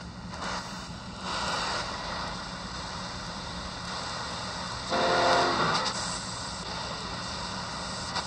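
Shortwave static hissing from the Yewrich YU-RU8 portable receiver's speaker as its analog tuning knob is turned across the 19 metre band, with a brief louder snatch of a station's audio about five seconds in.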